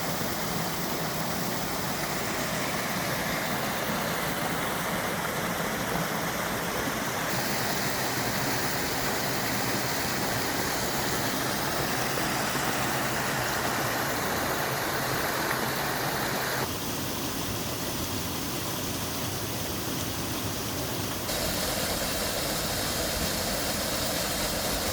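Steady rush of falling water from a waterfall, its tone changing abruptly three times.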